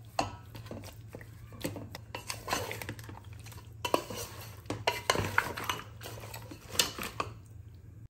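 Metal spatula scraping and knocking against the inside of an aluminium pot while raw mutton pieces and sliced onions are stirred, in irregular clinks and scrapes.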